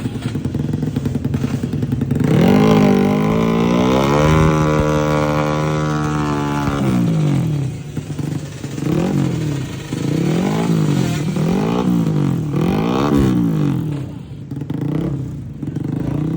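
Tuned drag-racing motorcycle engine revved hard while standing: one long rev held high for a few seconds, then a string of short, sharp throttle blips.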